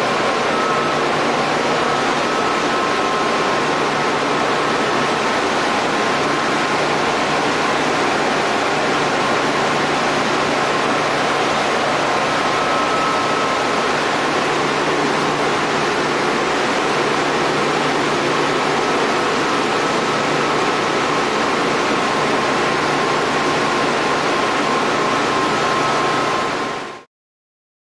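Loud, steady machinery noise in an industrial plant room, with a steady high whine and a low hum over an even rush. It cuts off abruptly near the end.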